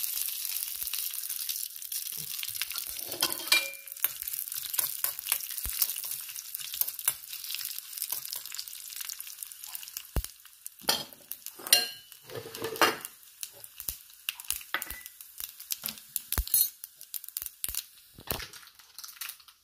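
Mustard seeds and dried red chillies sizzling and popping in hot ghee in an iron kadai, a ghee tempering. The crackle is dense at first and thins to scattered pops toward the end, with a few louder bursts about halfway through.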